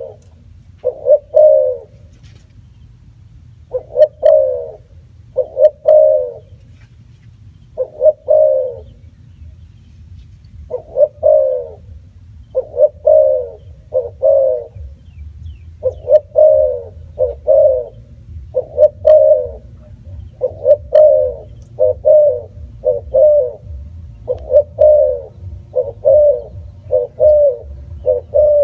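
Spotted dove cooing: a long series of short, low coo notes, sparse and in pairs at first, then following each other more quickly from about halfway through.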